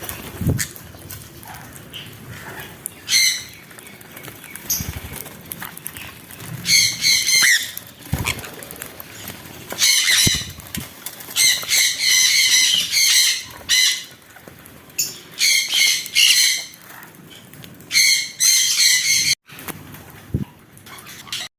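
Pet birds calling in short, harsh, repeated bursts, some in quick runs of several calls, with a few soft thumps among them.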